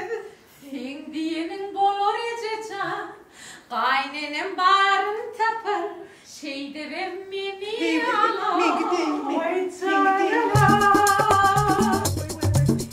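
A woman singing a melody unaccompanied. About ten seconds in, a backing track with bass and a percussion beat comes in.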